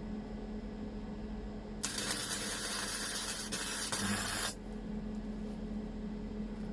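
Gasless flux-core MIG welding arc sizzling for nearly three seconds, starting about two seconds in and cutting off suddenly as the trigger is released, over a steady hum.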